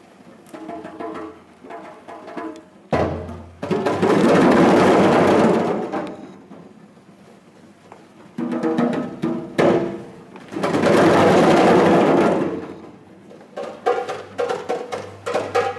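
A group of djembe drums played by hand. Short rhythmic phrases of separate hits alternate with two loud rolls of all the drums together, each lasting two to three seconds, with brief pauses between.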